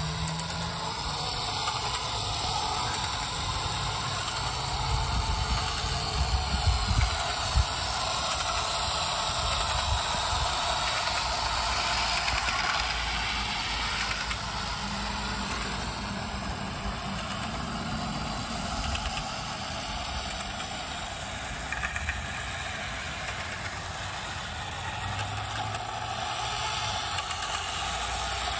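O gauge model train running along its track: a steady rumble of the locomotive and wheels on the rails, with a few sharper clacks about seven seconds in.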